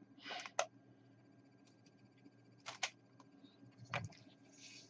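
Faint handling noise: a few light clicks and brief rustles as a plastic model-kit sprue is moved and laid down on a cloth, over a faint steady low hum.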